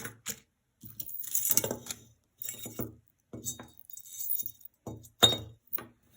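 Metal costume jewelry (chains, charms and pendants) jingling and clinking in irregular bursts as pieces are handled and sorted, with one sharper clink a little after five seconds.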